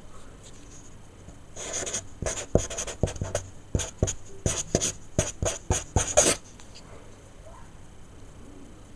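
Sharpie marker scratching quick short strokes on paper, a rapid irregular run of about a dozen strokes that starts about a second and a half in and stops after about five seconds.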